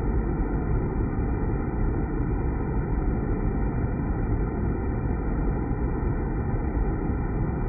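Water spraying down and splashing into the pool inside a deaerator vessel, a steady low rushing noise that does not change.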